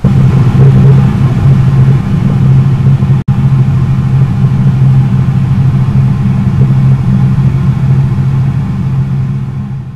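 A loud, steady, deep rumbling sound effect with a strong low hum, cutting out for an instant about three seconds in and fading away near the end.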